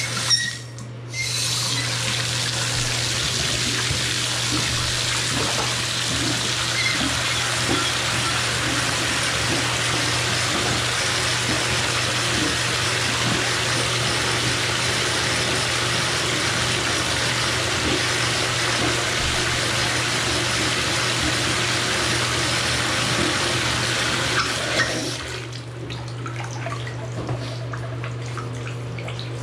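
Water running hard from a bathtub spout into the tub: turned on at the faucet handle about a second in, a steady rush, and shut off a few seconds before the end. A steady low hum sounds underneath.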